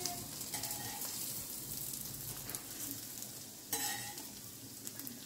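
Hot oil sizzling steadily in a frying pan of rava-coated sole fish, with a brief clatter about four seconds in.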